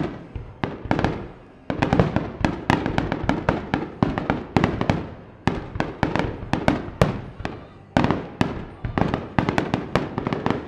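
Rapid volleys of aerial firework shells bursting: many sharp bangs a second, each trailing off in echo, with a brief lull about a second and a half in.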